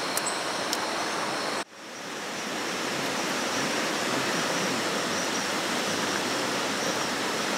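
Steady rushing water noise, even and without rhythm. It cuts out abruptly about one and a half seconds in and swells back up.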